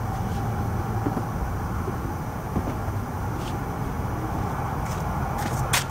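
Steady low rumble and hum of motor vehicle engines, with a few faint clicks and one sharp click near the end.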